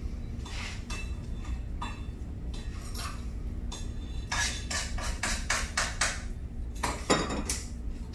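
Scattered sharp clicks and knocks over a low steady hum, with a quick run of clattering strokes between about four and six seconds in and a louder knock near seven seconds.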